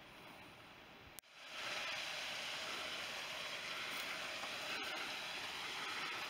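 Steady rush of a flowing stream over rocks. It starts abruptly about a second in, after a sharp click and a brief dropout, and follows a fainter hiss.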